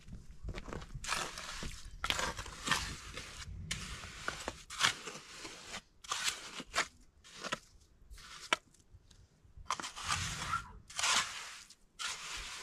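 Flat steel hand trowel scraping and smoothing wet cement, in a dozen or so uneven strokes, each under a second long.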